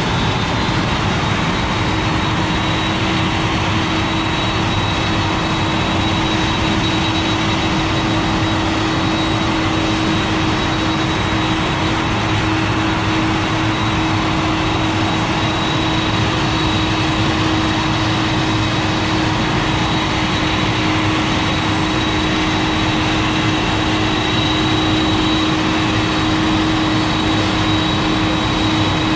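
Steady jet whine and rumble from a Boeing 747-400 being pushed back, with a constant high-pitched tone over a lower hum, unchanging throughout.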